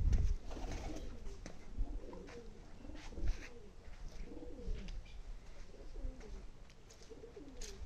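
Pigeons cooing, a string of low, repeated coos, with a few low bumps on the microphone near the start and about three seconds in.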